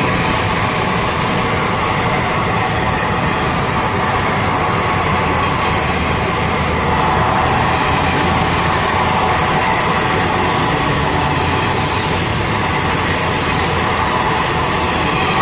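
Passenger coaches of an Indian Railways superfast express passing close by at high speed: a loud, steady rush and rumble of wheels on the rails.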